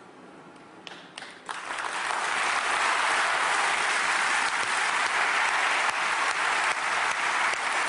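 Audience applause: a few scattered claps about a second in, then the whole audience joins in, swelling quickly into steady, dense applause.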